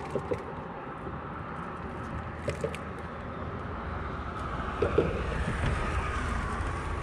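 Steady wind noise over open water around a small aluminium fishing boat, with short sounds coming in quick pairs several times, the loudest about five seconds in.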